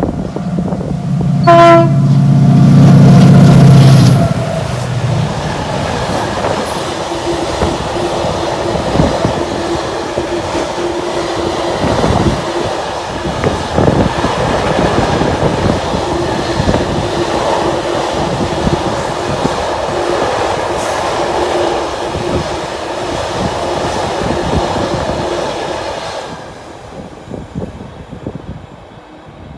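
British freight train hauled by a Class 68 diesel and a Class 88 electro-diesel locomotive sounding its horn for about four seconds, then running past with wheels clicking over the rail joints. The passing noise fades away near the end.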